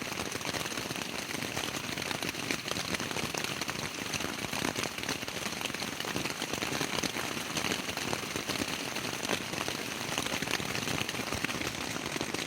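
Rain falling steadily on a tent, a dense patter of drops hitting the fabric.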